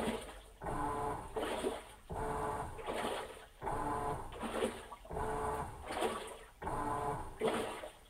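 Insignia top-load washing machine agitating: the motor whirs in short back-and-forth strokes, about one every three-quarters of a second, with water sloshing in the tub.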